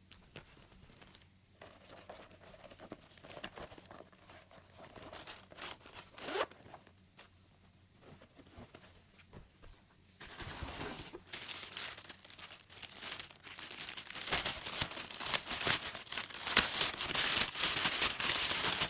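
Packaging crinkling and rustling as a new sling bag is unwrapped by hand: sparse, faint rustles at first, then dense, louder crinkling and tearing from about halfway through.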